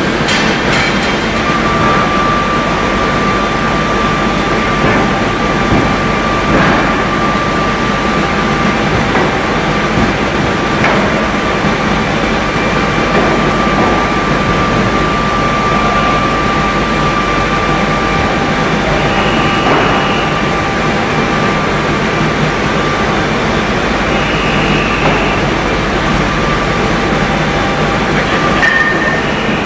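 Steady loud din of open-die forging machinery, a drop hammer and forging manipulator working a white-hot steel billet. A thin steady whine runs until about three-quarters of the way through, with a few faint knocks scattered at intervals.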